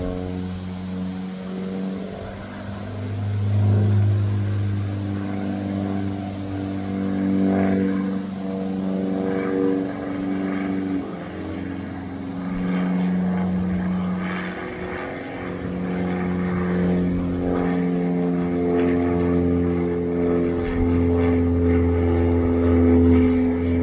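Biplane's propeller engine droning overhead, its pitch shifting up and down several times and its loudness swelling and fading as it manoeuvres.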